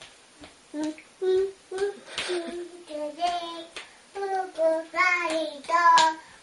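A toddler girl singing a made-up tune in a string of short, high-pitched sung syllables, with a few light knocks between them.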